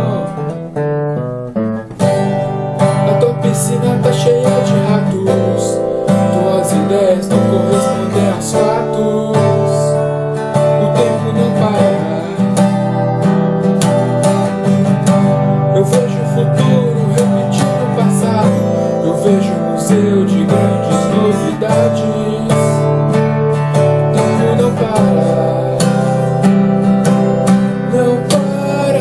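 Acoustic guitar strummed in a steady rock rhythm, chords ringing between strokes. It dips briefly just after the start, then picks up again.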